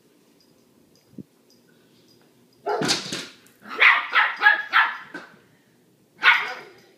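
Small dog barking at another dog on the other side of a door: one bark, then a quick run of about five, then one more near the end.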